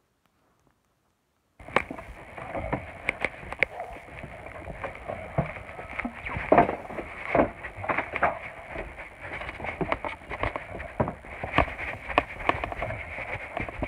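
Silent for the first second and a half, then footsteps and the knocks and rustles of a handheld phone being carried while walking, over a steady high-pitched buzz.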